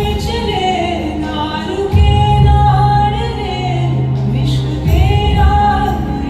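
Music: a woman singing a slow melody over sustained accompaniment, with deep bass notes that change about every three seconds.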